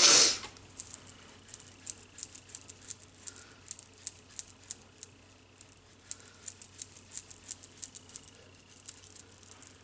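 Makeup brush patting and sweeping powder onto the cheek: an irregular run of soft, quick taps, several a second, after a brief rush of noise at the very start.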